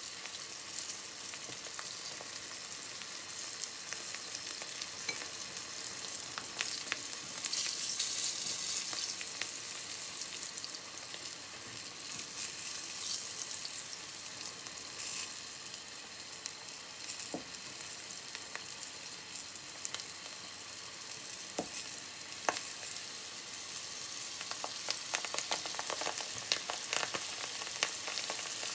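Eggplant and green pepper tempura frying in shallow oil in a frying pan: a steady high sizzle, briefly louder about eight seconds in, with scattered clicks of chopsticks against the pan as pieces are turned and lifted out.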